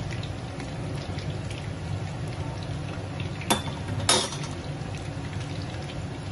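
Cornflake-coated fish pieces deep-frying in hot oil in a steel kadhai: a steady sizzle with small crackles. A little past halfway come two sharp metal clinks, as the steel slotted spoon is set down.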